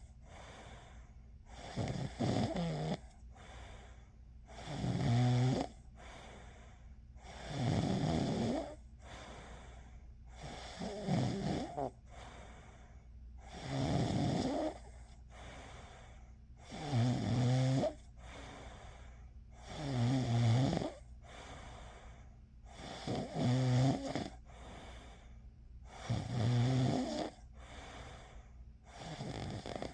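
A person snoring in a steady rhythm: a rough, pitched snore about every three seconds, ten in all, each lasting about a second, with quiet breathing between.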